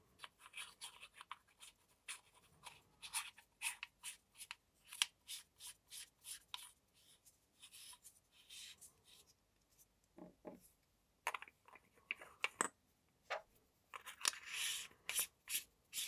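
Anodized aluminium threads of a Convoy M21B flashlight being screwed together by hand: faint scratchy ticks and rubs, with a short soft knock about ten seconds in.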